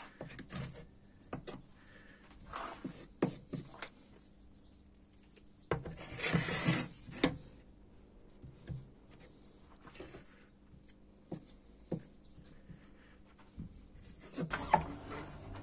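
Small wooden stick scraping and tapping on a chestnut board as wood putty is pressed into holes and knots: short scrapes and light knocks, with a longer scrape about six seconds in.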